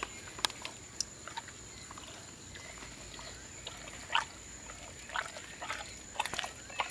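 Baird's tapir rooting and feeding with its snout in pine-needle litter: scattered short snuffles, clicks and crunches of chewing, a few louder ones about four seconds in and again near the end.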